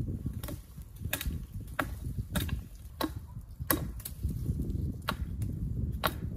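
Hatchet chopping into a thin wooden sapling pole: a run of about nine sharp wooden chops, one every two-thirds of a second, over a low steady rumble.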